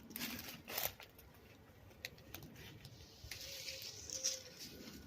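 Irregular scuffs and clicks of someone moving about on foot, with two louder scuffs in the first second, single clicks around two seconds in, and a longer scraping stretch a little past halfway.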